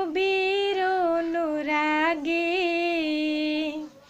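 A woman singing a Bengali Islamic devotional song solo with no accompaniment, holding long notes with small ornamental turns, and pausing for breath near the end.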